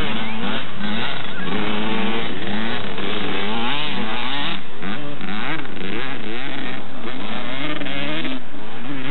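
Two-stroke Kawasaki KX125 dirt bikes revving hard on a motocross track, several engines overlapping, their pitch repeatedly rising and falling as the throttle is worked.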